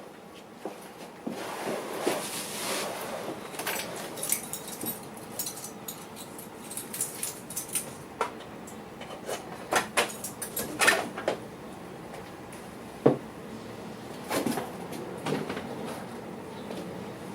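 Handling noises: irregular clicks, knocks and scraping of hard objects being moved about, with a louder sharp knock about thirteen seconds in.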